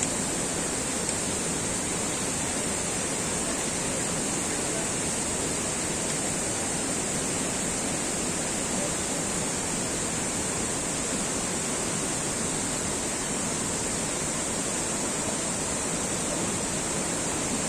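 Steady rush of running water, without a break or change.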